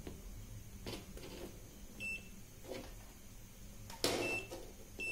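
DEKO digital multimeter beeping as its buttons are pressed: three short high beeps, about two seconds in, just after four seconds and near the end. The second beep follows a loud knock, with lighter knocks of the probes and meter being handled between.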